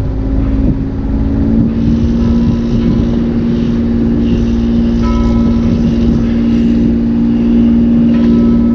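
Sailboat's inboard engine running steadily with a low hum, under way. A bell buoy dings faintly three times.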